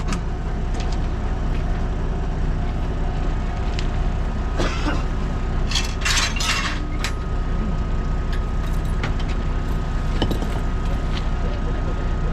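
Standing railway train: a steady low rumble and hum from its equipment, with short hisses of air about halfway through, typical of air brakes venting.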